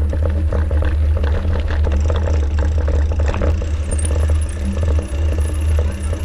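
Mountain bike rolling over a rough dirt trail, with irregular rattling and clattering as it goes over bumps, under a steady low wind rumble on the microphone.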